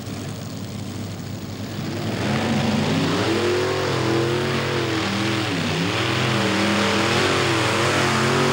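Modified pulling tractor with several supercharged engines running at full load as it pulls the brake sled down the track. The engine note comes in loud about two seconds in and keeps building, its pitch wavering up and down as the engines rev.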